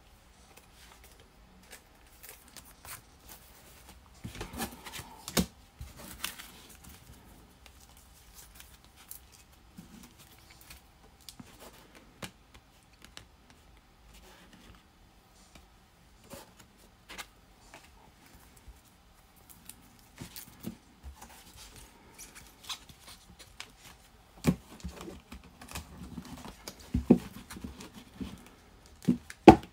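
Trading cards being handled: plastic card sleeves and rigid top-loaders scraping, clicking and rustling as cards are slid in and sorted, with light taps on the table. Near the end, busier handling and a few sharp knocks as a stack of cards is squared up.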